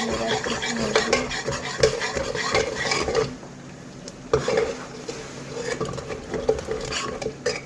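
A spoon stirring vegetables in a metal cooking pan, scraping and clinking against the pan. The clinks come thick and fast for about three seconds, then thin out, with a sharper clink about four seconds in and a few more scrapes near the end.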